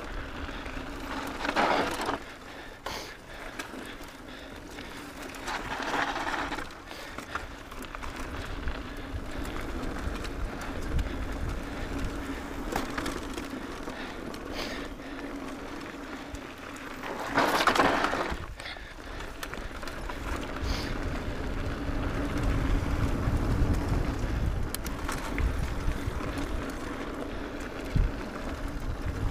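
Mountain bike descending a dirt singletrack: tyres rolling and crunching over dirt and gravel, the bike rattling over bumps, and the rear hub's freewheel ticking while coasting, over a low rumble of wind on the microphone. Three louder rushes of noise stand out, the longest about 18 seconds in.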